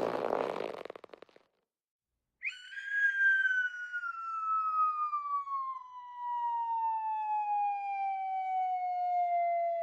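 Cartoon sound effect: a long whistle that glides slowly and steadily downward in pitch, the classic falling-bomb or slide-whistle drop. It starts about two and a half seconds in and is still falling at the end. Before it, a noisy effect fades out with a quick rattle.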